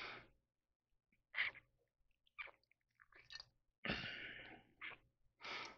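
Faint handling noise from the small plastic parts of a plug-in night light being turned over in the hands: a few scattered clicks and rubs, the sharpest about four seconds in.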